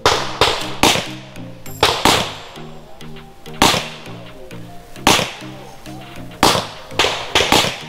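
Pistol shots at an uneven pace, about ten in all, some in quick runs of two or three. Background music plays under them.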